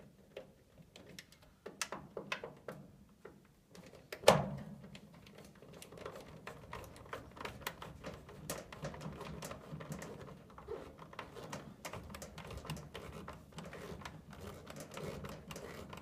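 Quick metallic clicks and rattles of a screwdriver and screws being worked while a replacement draft inducer motor is fastened into a furnace, with one sharp knock about four seconds in.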